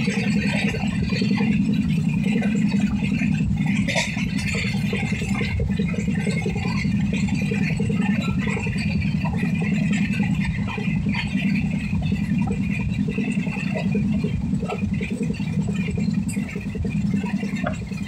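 Train running at speed on the rails: a steady, loud rumble with rattling and an occasional faint click.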